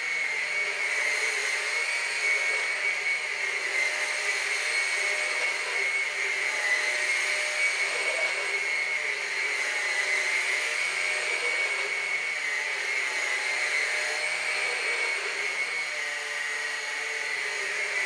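Numatic Henry Quick HEN70 cordless stick vacuum running on carpet: a steady high-pitched motor whine that holds without a break.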